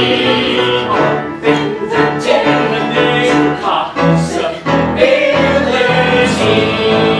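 Music: voices singing held notes in chorus over instrumental accompaniment, with a run of sharp percussion hits in the middle.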